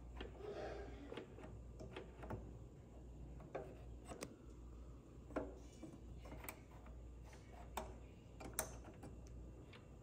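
Faint, irregularly spaced clicks from the control dials and buttons of a Wolf Gourmet Elite countertop toaster oven being turned and pressed, over a low steady hum.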